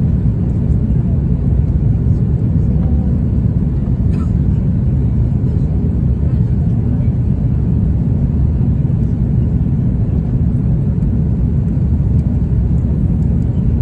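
Steady low roar inside an Airbus airliner's passenger cabin in flight: jet engine and airflow noise heard from a window seat.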